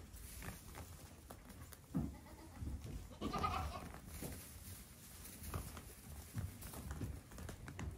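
Goat kids playing: hooves thumping and scuffling on a hay bale and a dirt floor, with a short bleat about three and a half seconds in.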